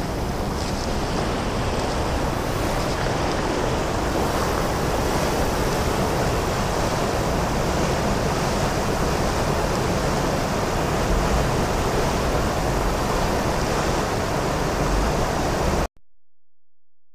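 Steady rushing of water in the gorge below the frozen Great Falls of Paterson, mixed with wind on the microphone. It cuts off suddenly near the end.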